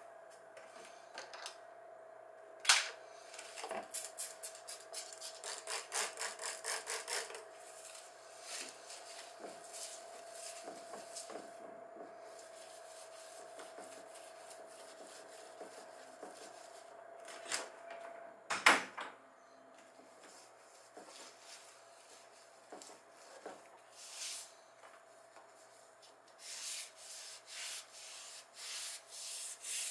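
A small pad being rubbed hard against a painted wall to scrub off marks, in runs of quick back-and-forth strokes, with two sharp knocks, one near the start and one past the middle.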